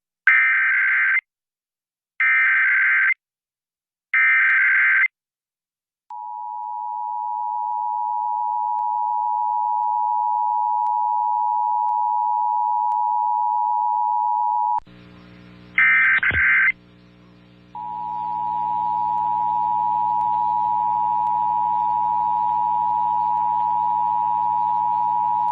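Emergency Alert System test signal: three one-second bursts of SAME header data, a harsh digital screech, then the EAS two-tone attention signal held steady for about nine seconds. About fifteen seconds in, a second recording starts with a low electrical hum, one more data burst, and the two-tone attention signal again.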